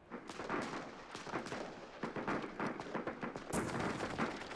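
Gunfire: a rapid, irregular string of shots that starts suddenly, with a louder bang about three and a half seconds in.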